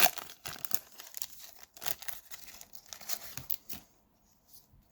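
Wrapper of a basketball card pack being torn open and crinkled, a dense run of crackles and rustles that stops about four seconds in.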